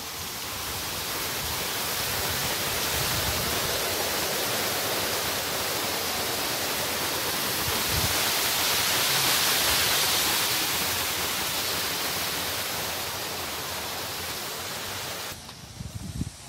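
Rushing stream water: a steady hiss that swells to its loudest about halfway through, then cuts off suddenly near the end.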